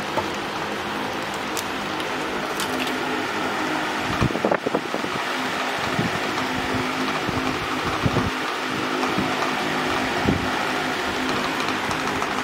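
A steady mechanical hum and hiss, with a few short low thumps about four seconds in and again later.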